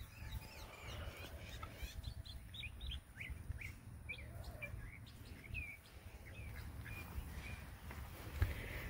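Birds chirping faintly: a string of short, high chirps a few at a time over several seconds, over a low steady rumble.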